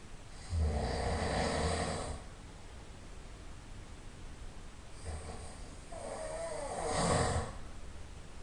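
A sleeping person snoring loudly: two snores. The first starts abruptly about half a second in and lasts under two seconds. The second comes about five seconds in, builds, and is loudest just before it stops.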